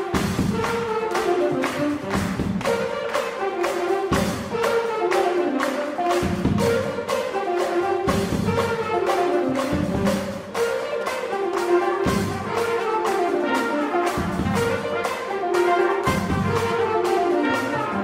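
Jazz big band playing an up-tempo tune: the horn section plays a short descending riff, repeated about every two seconds, over a steady drum beat.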